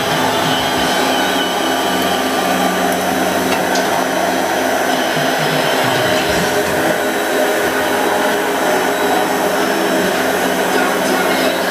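Steady, loud machine noise with a constant layered hum, unchanging throughout.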